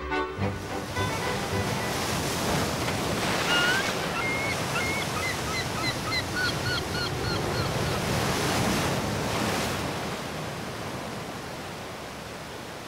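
Sea surf washing onto a rocky cove, surging and easing. A run of short bird calls sounds from about three to eight seconds in.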